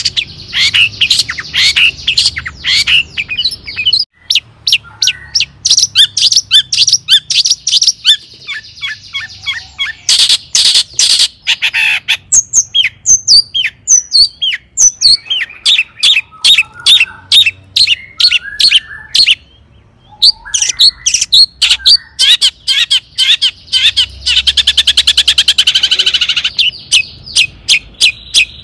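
Long-tailed shrike (cendet) singing a fast, varied song of quick repeated chirps and harsh rasping notes. There is a brief pause about two-thirds through, followed by a rapid trill.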